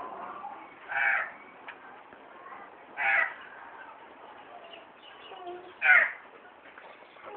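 A flock of Australian magpies calling: three loud, harsh squawks about a second, three seconds and six seconds in, with quieter calls between.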